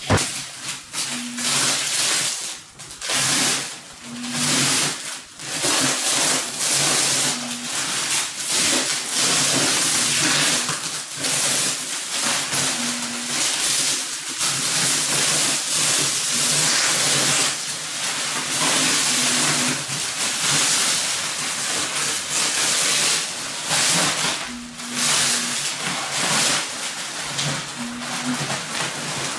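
Thin plastic vacuum-pack wrapping crinkling and rustling in fits and starts as it is pulled and gathered off a rolled memory-foam mattress.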